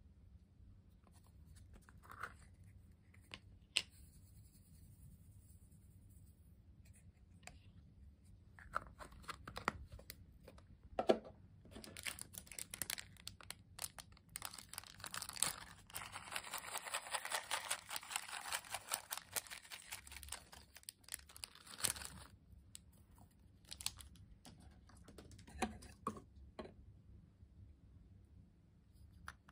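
Small plastic bag crinkling as clay sprinkles are shaken out of it onto slime in a glass bowl, a dense crackle lasting about ten seconds in the middle. Before and after it, scattered small clicks and taps of handled containers.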